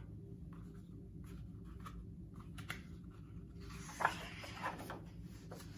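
A hand brushing across the paper page of a hardcover picture book: a soft rustle about four seconds in, over a faint steady low hum and a few faint clicks.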